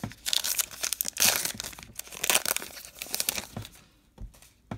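Wrapper of a 2019 Topps Allen & Ginter baseball card pack being torn open and crinkled by hand, a run of rustling tears over the first three and a half seconds, then a few soft knocks.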